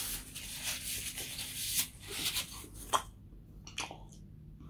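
Paper napkin rustling as it is rubbed across the mouth for about two seconds, then a few sharp clicks.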